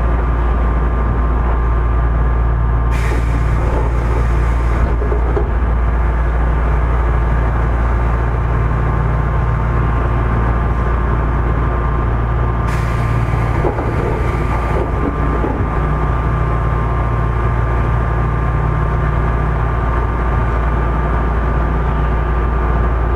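Inside a car of an Odakyu 1000-series electric train, the loud steady drone of its air conditioning and under-floor equipment, with a deep low rumble. Two short hisses of air cut in, about three seconds in and again about thirteen seconds in.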